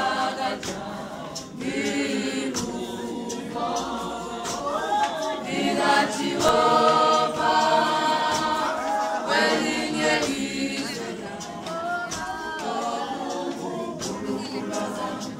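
A congregation singing a hymn together in many voices, unaccompanied, growing louder in the middle of the passage.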